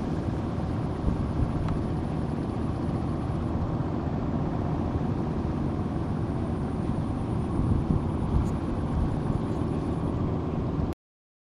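Steady low rumbling outdoor noise with a faint high steady whine above it, cutting off abruptly about eleven seconds in.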